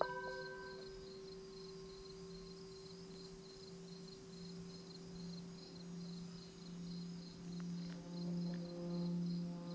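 Metal singing bowls: one is struck at the start, and a steady ringing tone carries on. A low bowl tone then swells in slow pulses and grows louder through the second half, as the mallet is worked around its rim. Crickets chirp steadily and high-pitched behind it.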